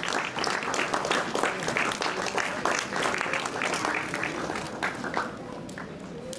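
Group of people applauding, a dense run of hand claps that thins out and dies away about five seconds in.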